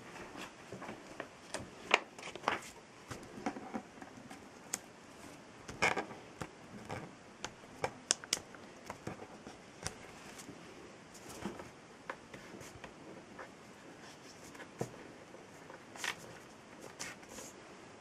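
Sheets of printer paper being handled and laid down on a wooden tabletop: scattered rustles and light, irregular taps, with a few sharper clicks around two, six and eight seconds in.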